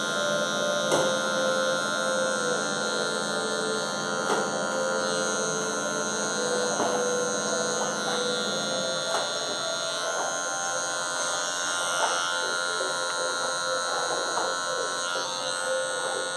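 Cordless hair clipper running steadily as it is worked over the side of the head, with the taper lever at a middle setting to blend out a faint leftover line in a fade.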